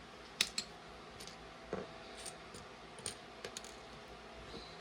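Small hard plastic LEGO pieces clicking and tapping as they are handled and sorted: a scattering of sharp clicks, the loudest about half a second in.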